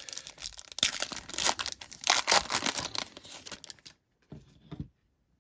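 A 2019 Panini Illusions trading-card pack's plastic wrapper being torn open and crinkled, a dense crackling full of sharp snaps that dies away after about four seconds.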